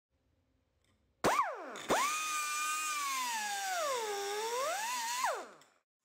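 High-pitched power-tool whine used as the logo intro sound. A short blip rises and falls, then the tool spins up again and holds a high pitch, sags lower and recovers. It ends with a quick rise and drop before fading out.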